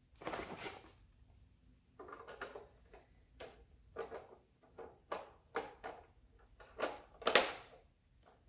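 Hands rubbing, scraping and pressing a plastic colour filter cover onto the rim of an 18-inch LED ring light. The strokes are irregular and short, and the loudest scrape comes near the end.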